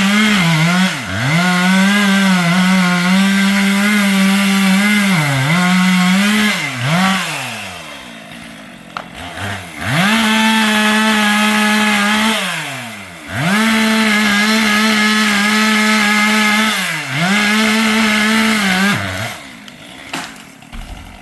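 Chainsaw run at full throttle in several long bursts, its engine note sagging and dropping back toward idle between them, then falling away near the end.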